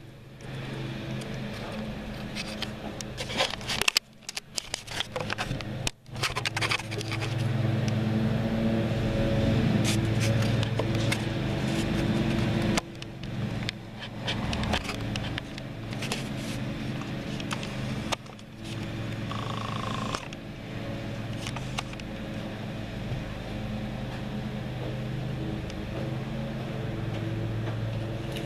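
Scrapes, knocks and clicks of gear being handled and set down on a wooden shooting bench, over a steady low hum.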